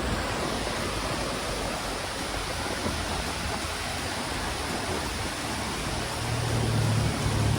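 Låtefoss waterfall rushing in a steady, even roar of falling water. A deeper rumble swells in near the end.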